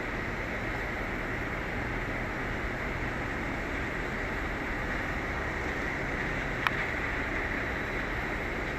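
Steady airport apron noise, a constant rumble and hiss of distant aircraft engines, with one short sharp click about two-thirds of the way through.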